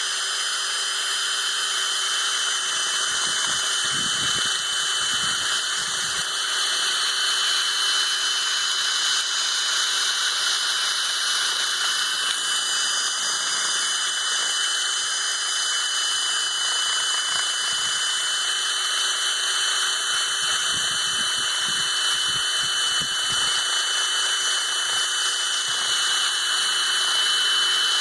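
Power drill running steadily at high speed, spinning a homemade sanding ball of sandpaper wrapped over a screwdriver handle; a constant high whine with motor hum underneath.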